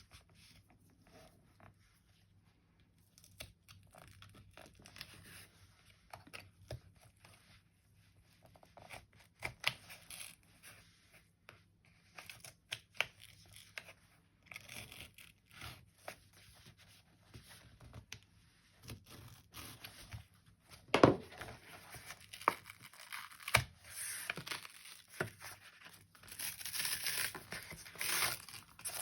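Foam padding and the cover's paper being torn and pulled out of a binder's front cover by hand: on-and-off tearing and crinkling with scattered small knocks, getting busier and louder over the last third, with one sharp knock about two-thirds of the way through.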